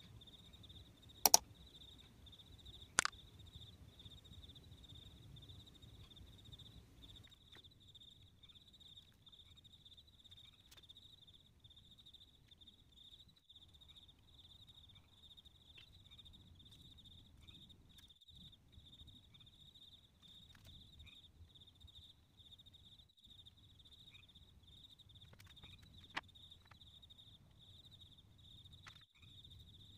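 Mouse-click sound effects from a like-and-subscribe animation: a sharp click about a second in and a fainter one a couple of seconds later. Under them, and throughout, runs a faint steady high-pitched chirring.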